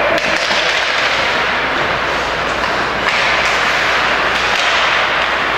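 Ice hockey being played in a rink: a steady hiss of skate blades scraping the ice, with scattered light knocks of sticks and puck.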